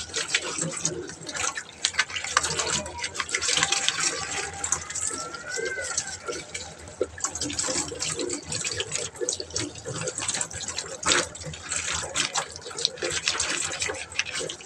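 Tap water running and splashing while a crusted washing-machine filter is rinsed and scrubbed by hand, with many small knocks and clatters throughout.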